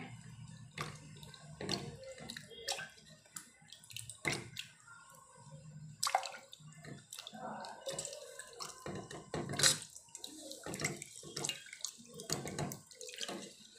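Dried salted fish being washed by hand in water in a stainless steel bowl: irregular sloshing and splashing, with scattered short clicks.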